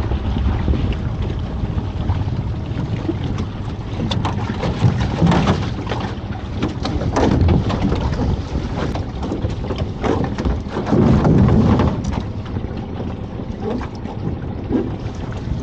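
Wind buffeting the microphone on a small open boat, with water washing against the hull. Irregular knocks and scrapes come through, loudest in the middle, as lobster pots and their rope are handled over the gunwale.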